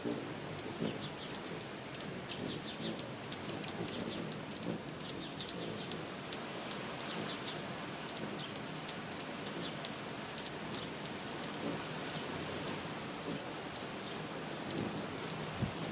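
A bird giving short, high chirps about every four seconds, among many sharp, irregular clicks.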